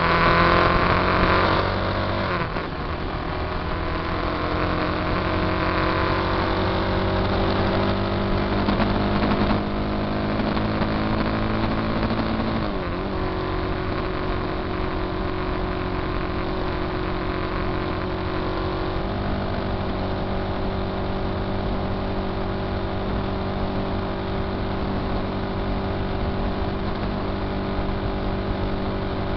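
Motorcycle engine pulling through the gears as the bike rides along a road. Its pitch climbs and drops at a shift about two seconds in, rises slowly, drops at another shift about thirteen seconds in, changes once more about nineteen seconds in, then holds steady at cruise.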